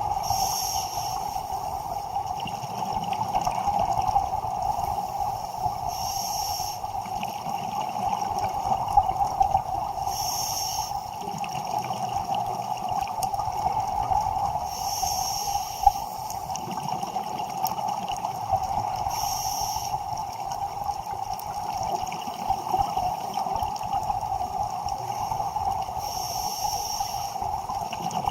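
Underwater scuba diving sound: a diver's regulator exhaust bubbling in bursts about a second long, every four to five seconds, over a steady hum.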